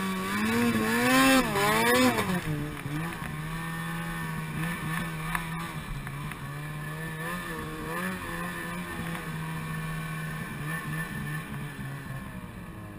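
Ski-Doo XM 800 snowmobile's two-stroke engine revving up and down for the first couple of seconds, then running at a steady pitch as the sled cruises through powder.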